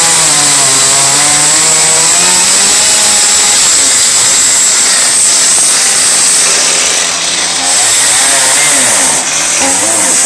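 Stihl MS 181 two-stroke chainsaw with a carving bar running hard, cutting into English oak; the engine note wavers as the load changes. The revs drop briefly twice in the second half.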